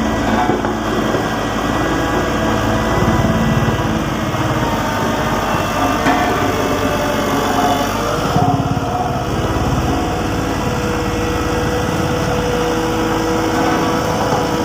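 Volvo vibratory road roller's diesel engine running steadily, a loud continuous engine rumble with a brief change in its pitch about halfway through.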